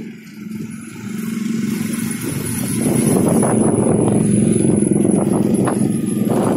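Vehicle engines on the road: a low engine hum grows louder over the first few seconds, then from about three seconds in a steady, loud rush of engine and wind noise, as from a moving motorcycle riding behind a minibus.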